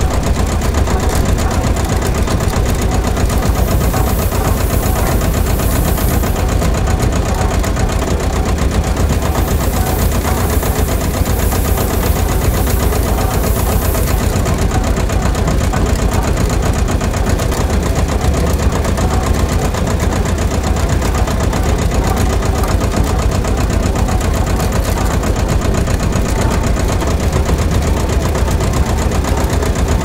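Diesel engine running steadily at idle with a fast, even knock.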